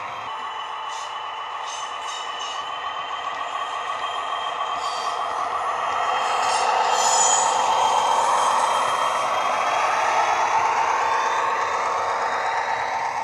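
Sound decoder in a model Class 43 Warship diesel-hydraulic locomotive playing its twin diesel engines running, with a steady turbo whistle over the engine note, through the loco's small onboard speaker. It swells louder about halfway through as the locomotive comes round toward the camera.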